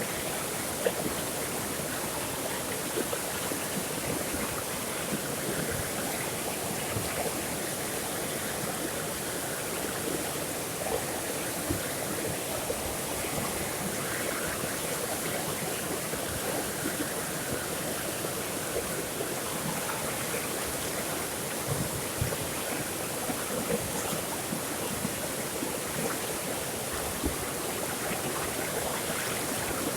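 Flowing water running steadily, with small splashes and gurgles scattered through it.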